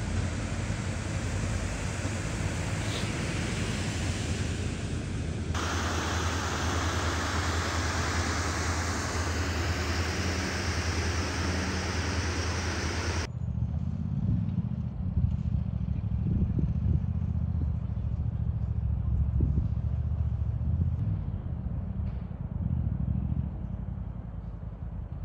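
Side-by-side UTV engine running steadily under wind and trail noise. A little over halfway through, the sound turns to a muffled low rumble with scattered knocks and bumps.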